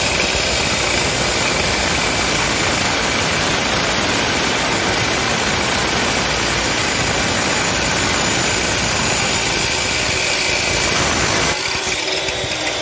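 Abrasive cut-off saw grinding through a 50 mm mild steel pipe, a loud, steady, harsh grinding. Near the end the cut goes through and the noise drops as the wheel runs free.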